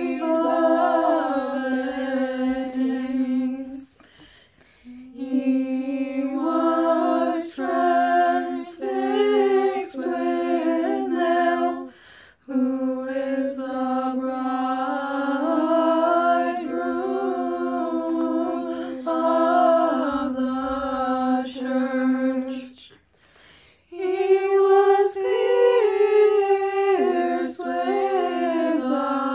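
Unaccompanied young voices chanting a Byzantine Orthodox Holy Thursday antiphon, with a melody moving over a steady held drone note. The chant comes in phrases, broken by three short pauses for breath.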